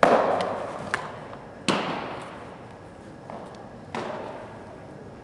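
A baseball smacking into a leather catcher's mitt, then two more sharp smacks about a second and a half and about four seconds in, each ringing on in a long echo.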